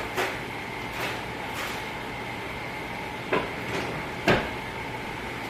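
A few light knocks and clicks from items being handled, the sharpest about four seconds in, over a steady background hum.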